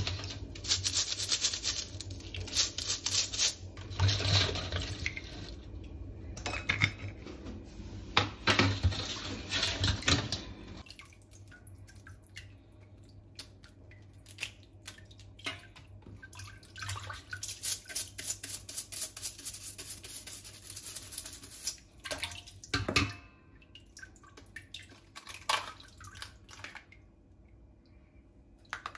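Small stiff-bristled brush scrubbing a blue swimmer crab's shell in a stainless steel bowl of water: rapid scratchy strokes with water splashing. About eleven seconds in the scrubbing stops and gives way to quieter water sloshing and small clicks as the crab is handled by hand.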